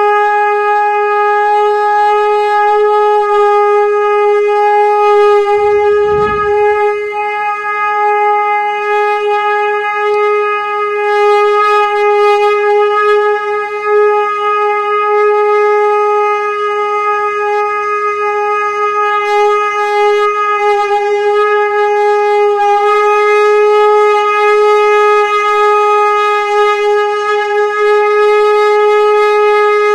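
Conch shell (shankh) blown in one long unbroken note at a steady pitch. There is a brief low rumble about six seconds in.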